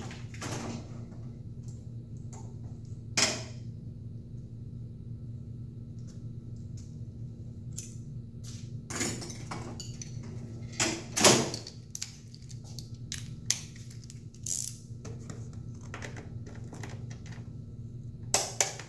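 Scattered metallic clinks, clatters and knocks of hand tools being handled: a wrench taken from a metal toolbox drawer and a socket wrench fitted to the motorcycle's seat bolt. The loudest clatter comes a little past the middle and two sharp clicks come near the end, over a steady low hum.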